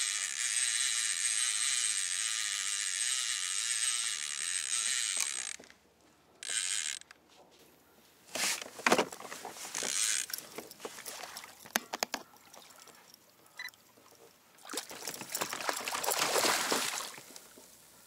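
Fishing reel buzzing steadily with a fish on the line, cutting off about five and a half seconds in. Then a hooked weakfish splashing at the surface in several bursts, the loudest near the end.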